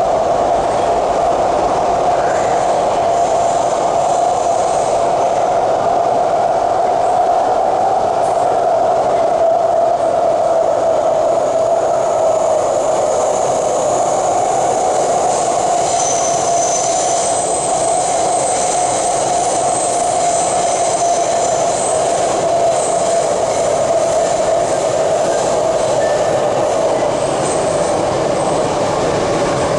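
Steady running noise inside an MTR C-Train metro car travelling at speed, with a constant hum throughout. A high-pitched squeal joins in about halfway through and lasts several seconds.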